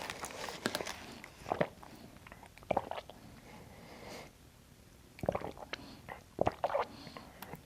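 Scattered soft clicks and knocks from objects being handled at a table, a few of them close together about three seconds in and again near the end.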